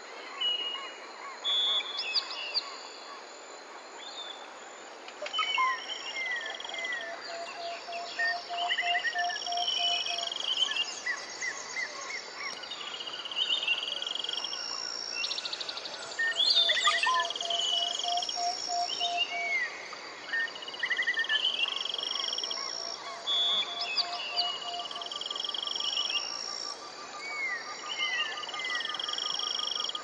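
A chorus of several birds calling over one another: runs of short arching chirps, held whistled notes, and a low rapid trill that recurs every few seconds, over a faint background hiss.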